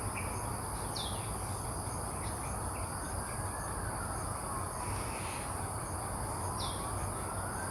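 Steady high-pitched insect chirring over a low background hum. A faint thin tone slowly rises and falls twice, and a few short high chirps break in.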